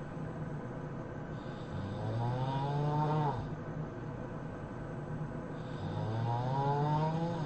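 A sleeping person snoring: two long snores about four seconds apart, each rising in pitch as it goes.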